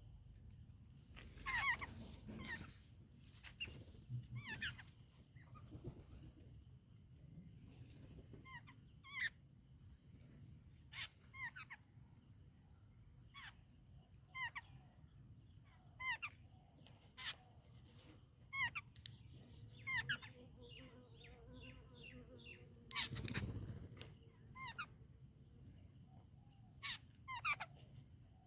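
Wild birds calling at a feeding spot: short pitched calls, one every second or so, sometimes a few in quick succession. A steady high whine runs underneath, and there is a brief rustle or thump a little after twenty seconds in.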